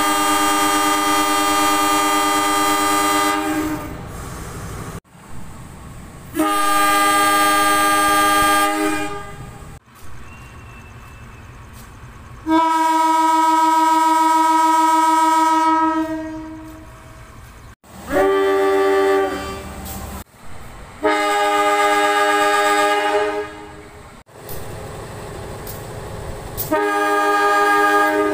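Air horns of CC 201 diesel-electric locomotives sounding six separate long blasts, each a steady chord of several tones lasting a few seconds, with quieter train running noise between them. This is Indonesian railway signal 35 (semboyan 35), the driver's long horn blast given on departure.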